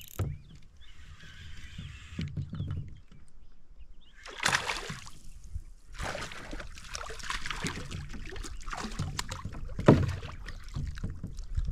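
Hooked bass thrashing and splashing at the water's surface beside a kayak, with knocks and handling bumps against the hull and one loud thump near the end.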